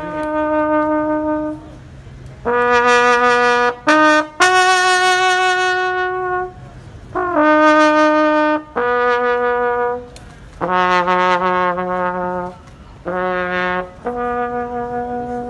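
A solo brass instrument plays a slow call of about nine long held notes, one at a time, with short breaks between them.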